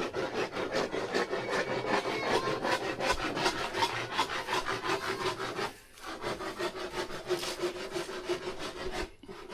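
Rapid, even rasping strokes of a blade working wood, about six strokes a second, pausing briefly about halfway through and again near the end.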